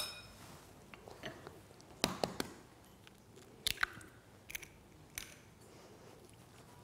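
A metal spoon clinks sharply against a glass mixing bowl with a short ring, then a few soft clicks and cracks as an egg is broken over the bowl and a shredded chicken and egg mixture is stirred.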